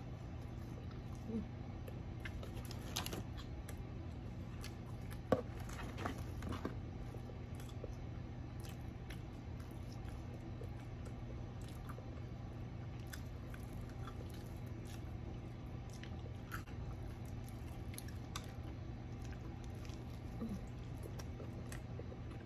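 Close-up eating: chewing French fries and biting into broasted fried chicken, with scattered small crunches and clicks, the sharpest about five seconds in. A steady low hum runs underneath.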